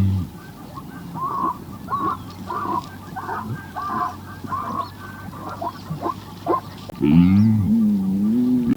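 Waterfowl honking: a run of about ten short calls. About seven seconds in, a louder, low, wavering animal call takes over.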